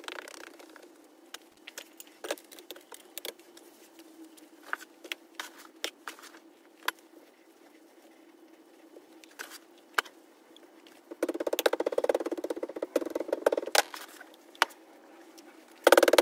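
Scattered light taps, clicks and scrapes of gloved hands and tools working Petrobond oil-bonded moulding sand into a steel casting flask, over a steady low hum. About eleven seconds in comes a few seconds of rapid dense scraping, and a louder burst of it starts near the end as the sand is rammed down.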